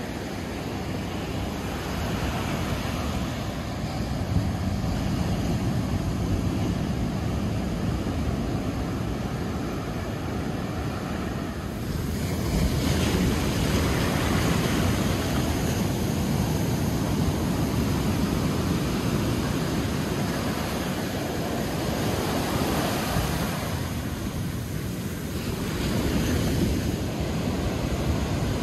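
Ocean surf breaking and washing up the beach: a continuous rush that swells louder as waves break, about twelve seconds in and again near the end.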